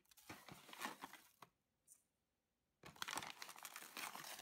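Paper sugar bag crinkling as it is handled and tipped to spoon out sugar. Two spells of crinkling with about a second of quiet between them.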